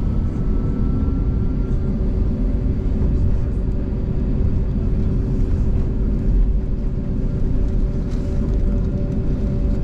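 Steady cabin rumble of an Airbus A321neo's Pratt & Whitney geared turbofan engines at low taxi thrust, heard from inside the cabin, with a steady low hum running through it.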